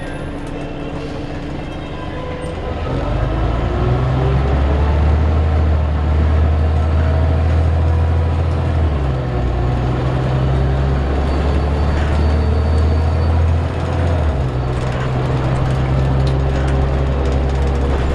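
Scania CN94UB bus's diesel engine heard from inside the saloon, getting louder about three seconds in as the bus pulls away and accelerates with a deep drone and a rising whine. It dips briefly twice, about nine and fourteen seconds in, as it changes up a gear.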